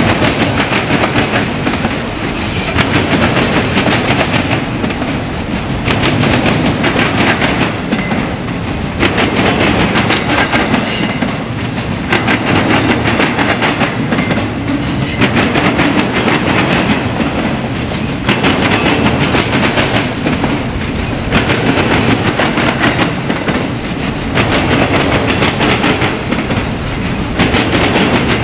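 Freight train cars rolling past, their wheels clicking over rail joints, with the sound swelling and easing in a regular cycle about every three seconds as each car goes by. A brief high wheel squeal comes about five seconds in.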